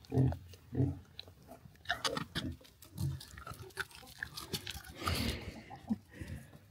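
Animals chewing and crunching cookies, with crackling bites around two seconds in, a few short low sounds near the start and about three seconds in, and a brief noisy huff about five seconds in.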